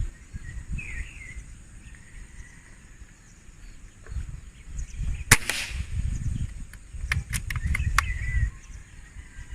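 A single shot from a Gamo Chacal PCP air rifle, a sharp crack about five seconds in, followed a couple of seconds later by a quick run of four or five light clicks. Low wind rumble on the microphone throughout.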